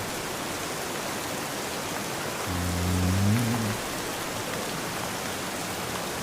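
Steady rain, with a man snoring once: a single low snore of just over a second, beginning about two and a half seconds in.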